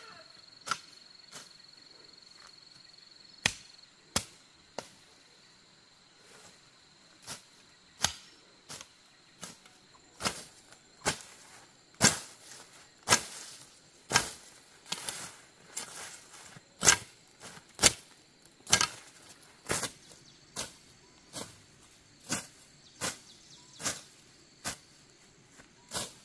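Machete slashing through grass and weeds: a run of sharp chopping strokes, roughly one a second and coming faster in the middle. Insects trill steadily in the background.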